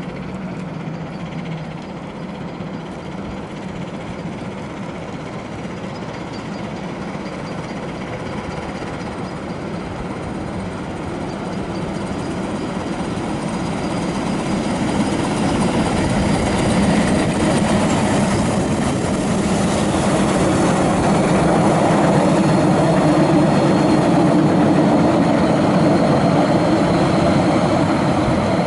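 Narrow-gauge park-railway steam locomotive hauling a train of carriages along the track. The sound of the engine and the rolling carriages grows steadily louder from about halfway through as the train comes close and passes.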